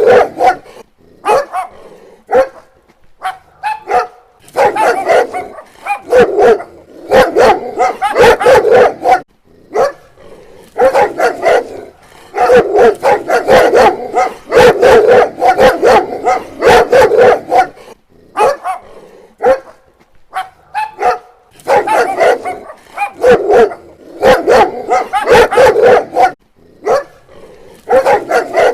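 Dog barking in repeated bouts of rapid barks, each bout a few seconds long, with short pauses between.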